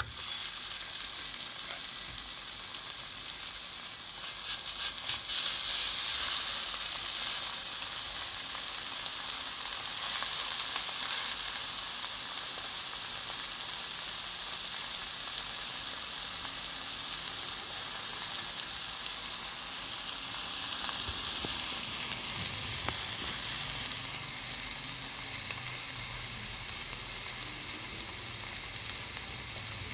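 Pieces of duck sizzling and crackling in hot fat in a non-stick frying pan. The sizzle starts abruptly and then holds steady, a little louder a few seconds in.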